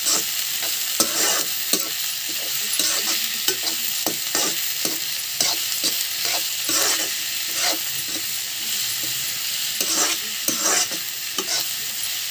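Sliced onions and potato cubes sizzling in oil in a wok, with a spatula scraping and stirring them in repeated strokes, about two a second, over a steady hiss.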